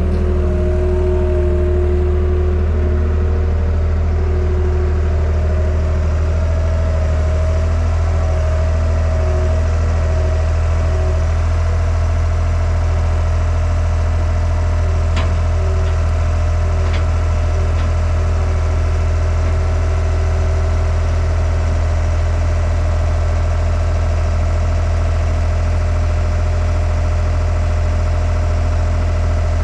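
Vehicle engine running steadily with a deep, even drone and a wavering whine above it, such as a truck hauling a load. Two short ticks come about halfway through.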